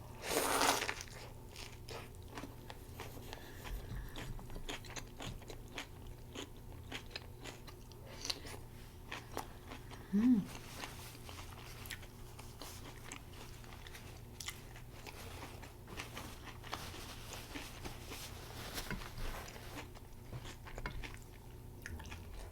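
A person chewing and biting into a homemade plant-based Impossible burger meal close to the microphone: a run of small wet mouth clicks, with a louder crunching bite about half a second in and a brief hummed "mm" about ten seconds in.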